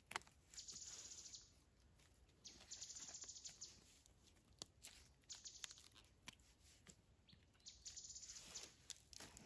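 Faint, high, rapid trilling in four separate bursts of about a second each, with scattered faint ticks and crackles between them.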